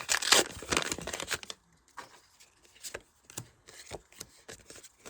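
Foil booster pack wrapper crinkling and tearing for about a second and a half, then sparse light taps of trading cards being handled and set down.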